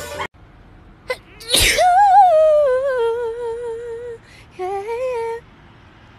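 A sharp sneeze about one and a half seconds in, followed at once by a long wavering sung note that slides down and holds, then a shorter rising note near the end.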